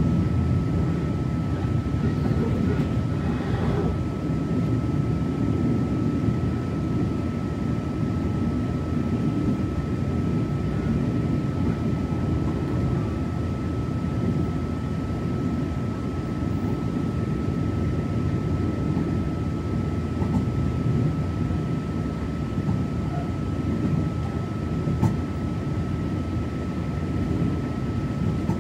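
Steady low rumble inside a Taiwan Railways Tze-Chiang push-pull passenger car running on the line, with a faint, steady high-pitched whine.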